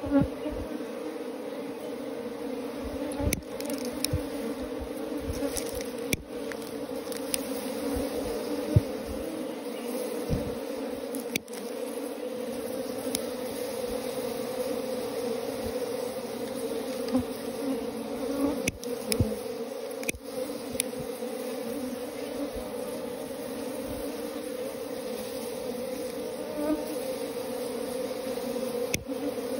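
A wild honeybee colony on open combs buzzing as a steady, even hum while smoke from a smouldering ember drifts over the nest. A few short clicks or knocks sound now and then over the hum.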